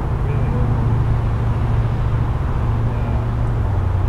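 Fire engine's engine running steadily: a low drone that drops slightly in pitch near the end.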